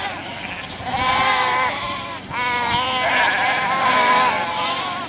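A flock of sheep bleating, many calls overlapping at once.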